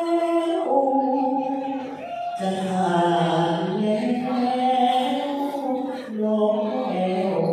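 A male likay lead singer's solo voice, singing a slow, melismatic Thai line: long held notes that step from pitch to pitch, with a short breath break about two seconds in.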